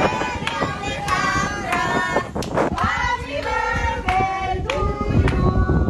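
A birthday song sung in high-pitched voices, with sharp clap-like hits.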